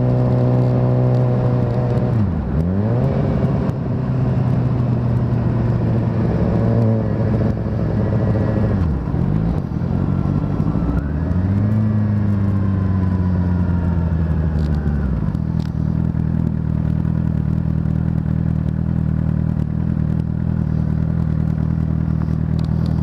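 Inline-four engine running, its pitch dipping sharply and recovering twice, about two and a half and nine seconds in, then rising and slowly sinking before it settles into a steady idle after about fifteen seconds.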